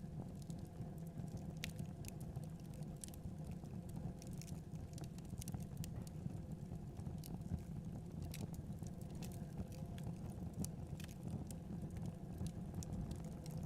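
Wood fire burning in a fireplace: irregular sharp crackles and pops from the logs over a steady low rumble.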